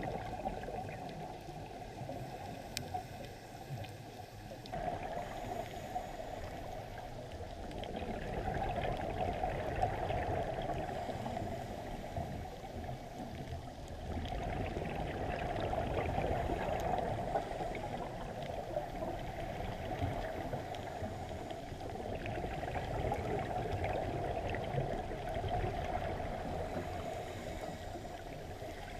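Underwater water noise picked up by a camera in its waterproof housing during a reef dive: a muffled, steady rushing that swells and eases every few seconds.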